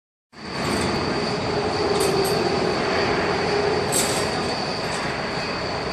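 Industrial machinery running steadily, typical of a hydraulic press brake on a workshop floor. A dense noise carries a steady high whine and a lower hum, with a few light clicks about two and four seconds in.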